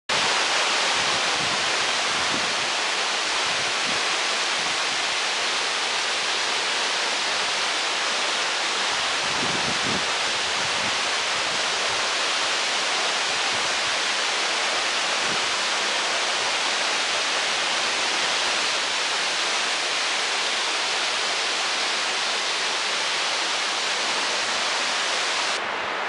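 Waterfall cascading down stepped rock: a steady, even rush of falling water.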